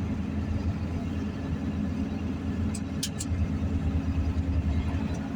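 Steady engine and road noise heard from inside a moving vehicle, a low drone, with two short clicks about three seconds in.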